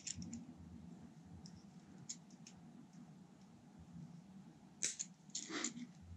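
Small side cutters snipping through the copper wire of a helical antenna coil: one sharp snip about five seconds in, followed by a short burst of handling noise, among faint clicks of the tool and wire being handled.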